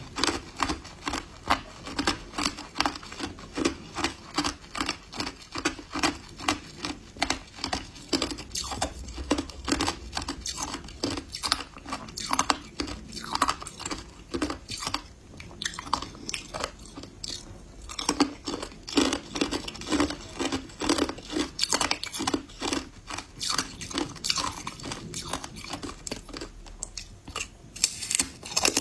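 Close-up chewing of hard ice coated in matcha powder, a steady run of loud crunches, two to three a second.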